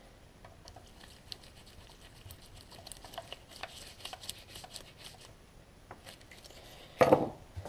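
Faint, irregular clicks and scrapes of a screwdriver turning a Phillips screw into an ATV rear brake master cylinder held in a bench vise, then a louder clunk near the end.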